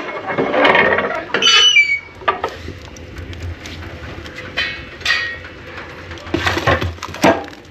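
Cast-iron wood-stove doors being unlatched and swung open: metal clanks and knocks from the handles and iron doors, with a short high squeak about one and a half seconds in. Further clanks of metal on iron come near the end.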